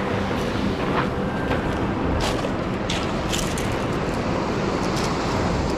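Steady rush of surf washing onto a pebble beach, mixed with wind rumbling on the microphone, with a few brief sharp clicks.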